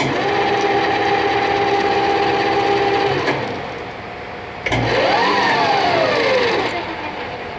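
Hardinge HLV-H toolroom lathe's drive running under power twice. It starts suddenly into a steady whine that holds for about three seconds and cuts off. About a second and a half later it starts again, its whine rising and then sinking as it slows to a stop.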